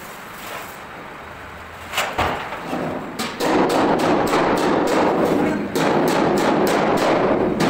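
Plate rolling machine turning a large curved steel sheet: a loud, dense metallic rumble and rattle with a fast regular ticking over it, starting about three seconds in. A single sharp knock comes about two seconds in.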